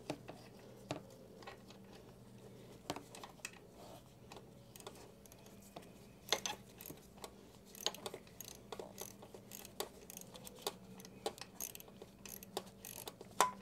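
Hand socket ratchet clicking in short, irregular runs while a radiator mounting bolt is loosened, with scattered small metal clicks from the tool.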